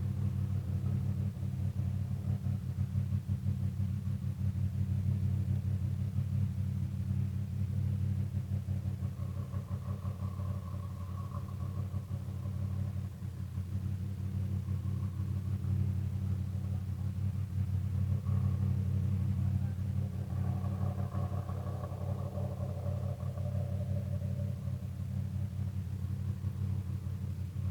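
A steady low rumble with the drone of distant off-highway vehicle engines, swelling and fading about ten seconds in and again around twenty seconds in.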